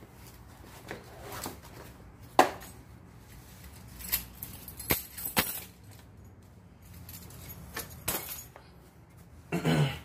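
Handling noise: a scattering of sharp clicks and knocks with light shuffling between them, the loudest knock about two and a half seconds in, and a short, fuller thump just before the end.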